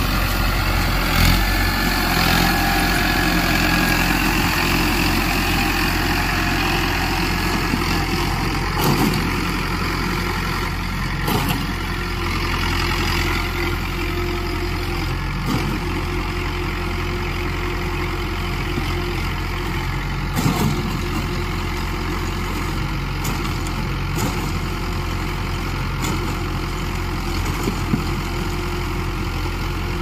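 Hindustan 60 tractor's diesel engine running steadily with a baler hitched behind it, with a few short knocks now and then.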